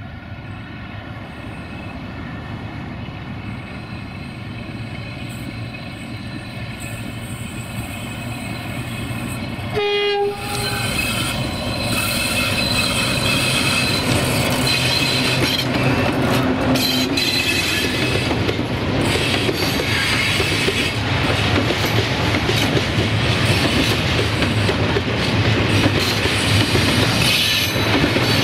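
Diesel locomotive of Romanian class 060-DA (LDE2100), with its Sulzer V12 engine, running as it approaches and growing steadily louder. About ten seconds in it gives a short horn blast. The locomotive and its tank wagons then roll past close by, loud and continuous.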